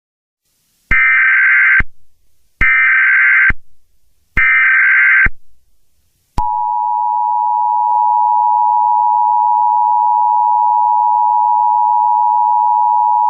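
Emergency Alert System tones: three short, identical bursts of SAME header data, each about a second long, then about six seconds in, the steady two-tone EAS attention signal, which sounds on without a break. This is the tone sequence that opens a new emergency alert.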